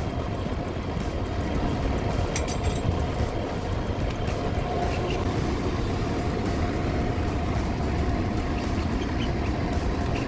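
Large exhaust fan running with a steady low rumble and a faint hum, with brief light clicking about two and a half seconds in.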